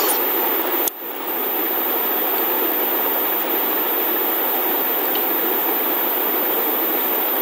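Steady background hiss without any tone or rhythm. It drops out briefly with a click about a second in, then carries on unchanged.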